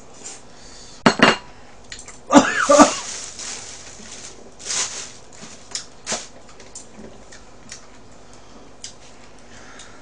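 Chopsticks clicking and scraping against plastic takeout containers and dishes while food is picked up: scattered clicks and clatters, the loudest about a second in and again about two and a half seconds in.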